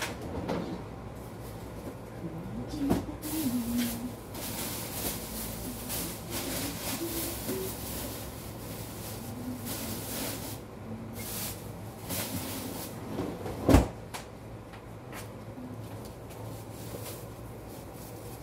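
Kitchen handling sounds at the counter: rustling and light clatter, with one sharp knock about fourteen seconds in.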